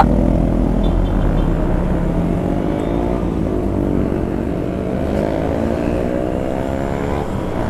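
Motorcycle engine pulling away and accelerating, its pitch rising, dropping at a gear change about three seconds in, then rising again, with heavy wind rumble on the microphone.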